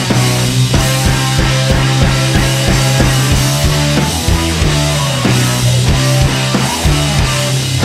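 Rock music soundtrack with a steady drum beat and held bass notes that change every second or so.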